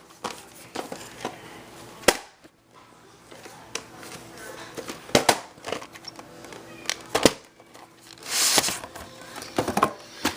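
Handling of a VHS cassette and its plastic case: scattered sharp plastic clicks and knocks, with a brief rustle about eight and a half seconds in.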